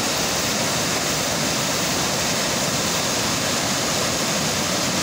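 River water pouring over a rock ledge and churning through rapids: a steady, even rush of white water.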